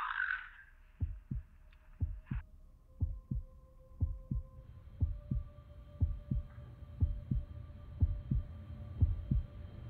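Heartbeat sound effect: a low double thump, lub-dub, about once a second, over a faint steady hum. It opens on the fading tail of a short rushing noise.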